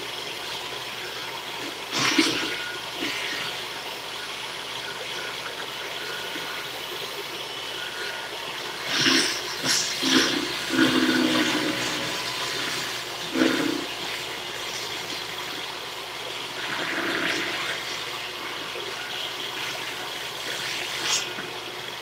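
A machine that has been switched on runs with a steady rushing whir. Several knocks and scrapes break through it as wood and aluminum pieces are handled on the saw table.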